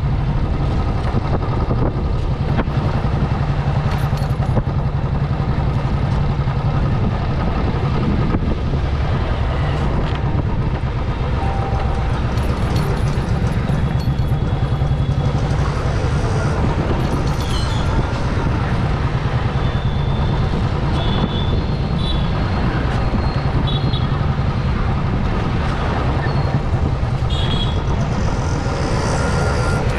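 A two-wheeler's engine running steadily while riding through city traffic, with road noise and the sound of other vehicles around it. A few short high beeps come in the second half.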